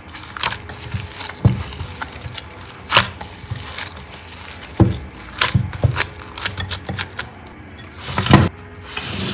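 Mashed potato dough being kneaded and pressed by a gloved hand in a glass bowl: irregular soft squishes and knocks, with a louder, longer thump near the end.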